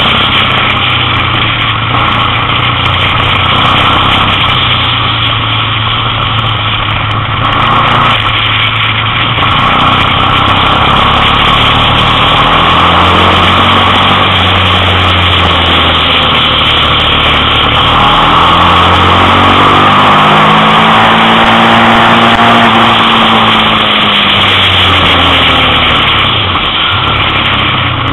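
Motorcycle engine heard from the rider's own bike, pitch rising and falling with the throttle through a run of bends, over a constant rush of wind noise on the microphone.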